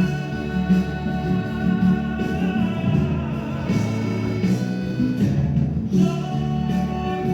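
Brazilian sertanejo love song with guitar and a steady beat, a sung voice holding long notes over it.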